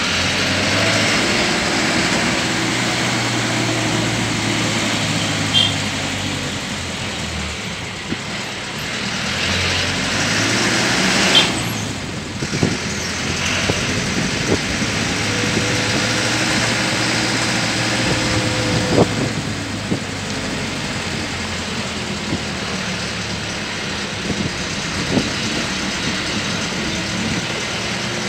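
Road vehicle's engine running while driving, heard from aboard, its pitch rising and falling as it speeds up and slows, over steady road noise. A few sharp knocks or rattles stand out, the loudest about eleven seconds in.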